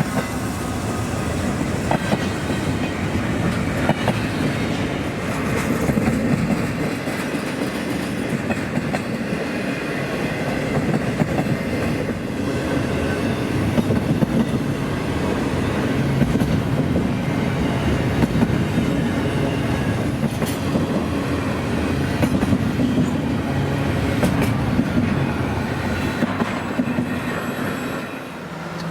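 A train's cars rolling steadily past on the rails: a continuous rumble and rattle of wheels, with occasional sharp clicks over rail joints and a faint wheel squeal.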